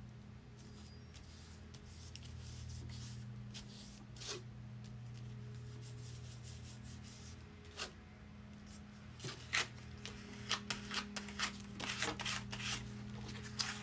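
Paper rustling and rubbing as hands press and smooth a glued paper strip onto a collaged journal page. Scattered light taps and crinkles grow busier in the last third, over a faint steady low hum.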